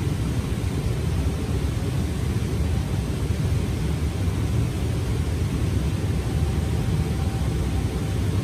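Steady low rumble of ventilation running in a commercial kitchen.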